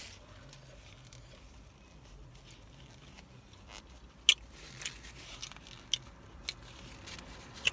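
Quiet chewing, with a few sharp clicks in the second half, the loudest about four seconds in, over a faint steady low hum.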